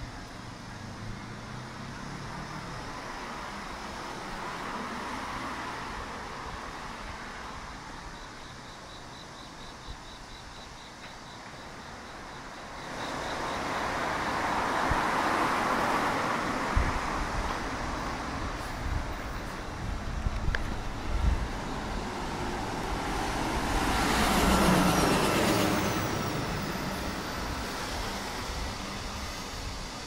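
Road traffic: cars passing on the street beside the sidewalk. It gets louder about halfway through and swells as a vehicle goes by a few seconds before the end.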